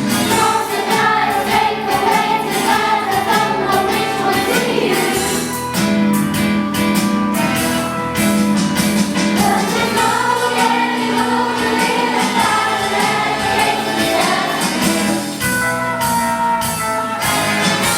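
A choir singing a song over an instrumental backing with a steady beat.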